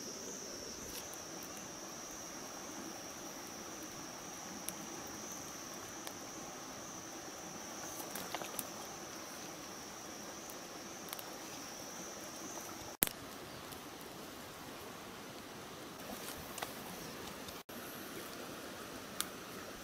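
An insect's steady, high-pitched buzzing call, which stops about two-thirds of the way through, with a few faint scattered clicks.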